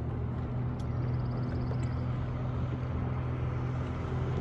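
A boat motor running steadily, a low even drone that carries across the water.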